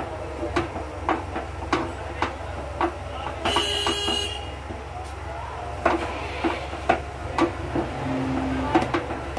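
A metal spoon stirs stiff rice-flour dough in a stainless steel pot, knocking and scraping against the pot's sides about once or twice a second. About three and a half seconds in, a high-pitched horn-like toot sounds for about a second.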